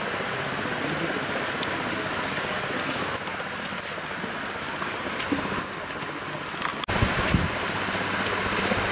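River water rushing over a shallow rocky bed, a steady hiss with occasional light splashes. About seven seconds in, the sound cuts to a louder, deeper rush of water.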